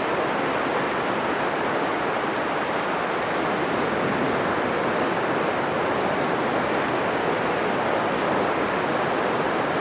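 Atlantic Ocean surf breaking on a sandy beach: a continuous, steady wash of waves, with no single break standing out.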